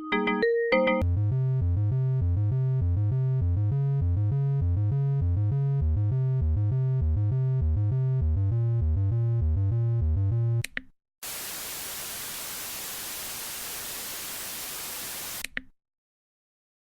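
A few bright mallet-like synth notes, then a low synth loop repeating a short pitched pattern for about ten seconds before it stops. After a brief gap comes a steady burst of white-noise static lasting about four seconds, which cuts off abruptly.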